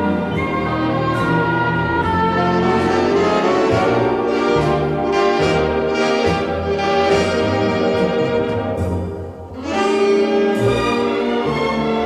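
Orchestral background music with brass to the fore, dipping briefly about three-quarters of the way through and then swelling again.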